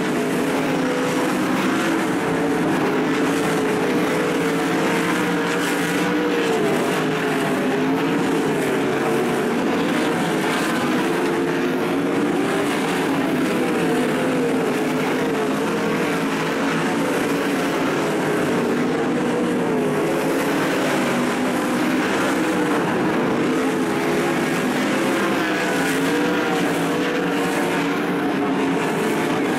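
Several 410 sprint cars' methanol V8 engines at racing speed, overlapping, their pitch rising and falling without a break as they lap the dirt oval.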